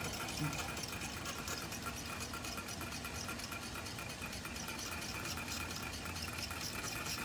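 Small low-temperature-difference Stirling engine running fast, its piston and linkage ticking rapidly and evenly with each turn of the flywheel. It is driven by liquid nitrogen in the cup beneath and hot water on the top plate.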